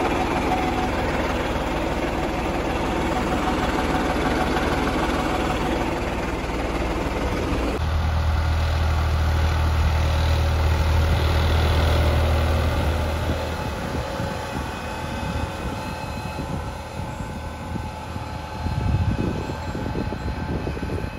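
New Holland tractor's diesel engine running steadily beside the maize planter. About 8 s in, after a cut, a deeper, louder engine hum as the tractor pulls the planter across the field, growing fainter after a few seconds.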